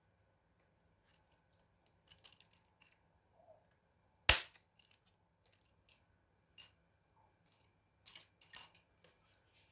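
Scattered small clicks and taps of hands and tools working on a laptop, with one sharp, loud snap a little over four seconds in.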